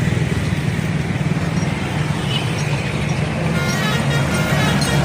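A bus engine runs steadily close by. About three and a half seconds in, its multi-tone telolet horn starts playing a melody of short notes.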